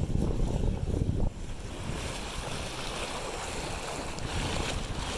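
Wind rumbling on the microphone over the rush of water past an inflatable dinghy under way. About a second in it gives way suddenly to the steady hiss and splash of the bow wave breaking alongside.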